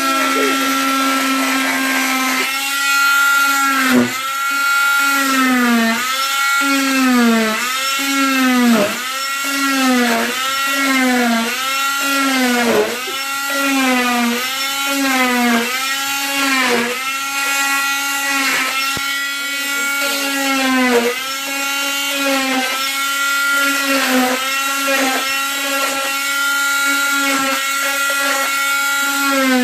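Electric oscillating cast saw cutting through a leg cast: a loud, steady motor whine whose pitch dips briefly and recovers over and over, roughly once a second, as the blade bites into the cast.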